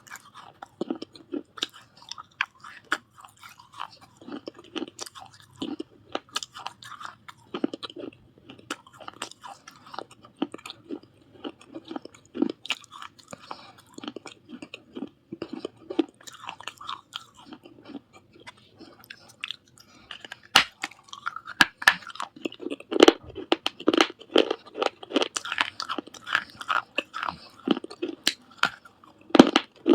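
Someone biting and chewing pieces of baked clay surahi, many short sharp crunches in quick succession, coming thicker and louder about two-thirds of the way through.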